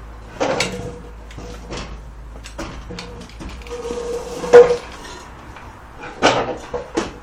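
Metal clanks and knocks from the boat trailer and its winch gear as the boat is loaded. A squealing tone comes and goes, peaking sharply about four and a half seconds in.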